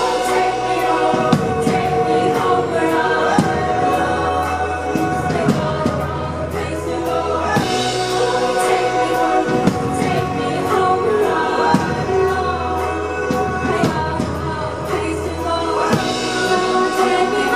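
Live pop music: a woman singing long held notes into a microphone over a steady drumbeat and bass.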